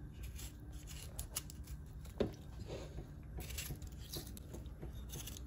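Kitchen knife cutting salad vegetables held in the hand rather than on a chopping board: faint, scattered cutting clicks and scrapes over a low background hum.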